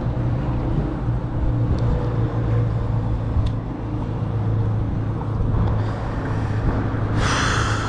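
Steady low rumble of wind buffeting the microphone over choppy water, with a short hissing rush about seven seconds in.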